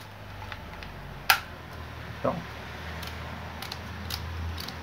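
Plastic handling clicks as the hot air brush's black housing and pink collar are fitted back together by hand: one sharp click about a second in, a softer one a second later, then a few light ticks near the end.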